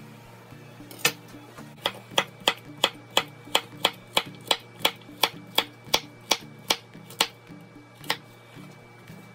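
Chef's knife chopping carrots on a wooden cutting board: a single chop about a second in, then a steady run of about three chops a second, and one last chop near the end. Background music plays underneath.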